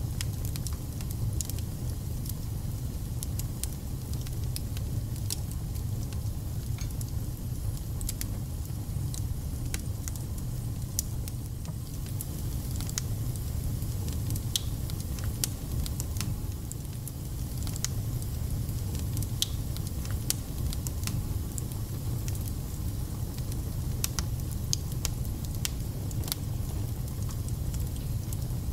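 Wood fire burning in a fireplace: a steady low rumble under frequent, irregular sharp crackles and spits.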